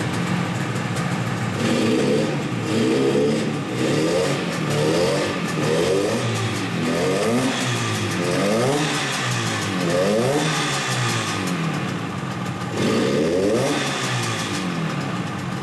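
1972 Yamaha YDS7's 250 cc two-stroke twin running just after being kick-started, revved over and over in short throttle blips, each a rise and fall in pitch, with a steadier stretch about eleven seconds in before the blips resume.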